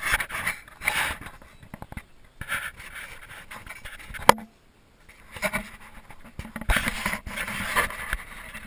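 Irregular scraping and scratching handling noise in several spells, with one sharp knock about four seconds in.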